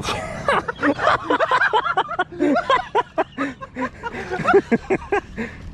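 Men's voices laughing and exclaiming in short, rapid bursts, with no clear words.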